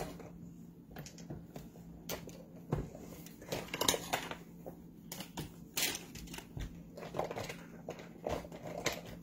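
Irregular small clicks, taps and crinkles of cosmetic products and their packaging being handled, picked up and set down, over a faint steady hum.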